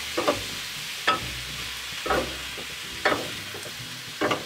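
Ground lamb and beef sizzling as it browns in a frying pan, with the utensils scraping and knocking against the pan about once a second as the meat is stirred and broken up.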